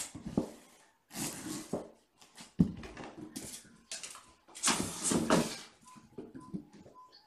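Kittens scampering and tussling on a hard floor among their beds and toys: a run of scuffling, rustling bursts with a sharp knock about two and a half seconds in, thinning to faint scrabbling near the end.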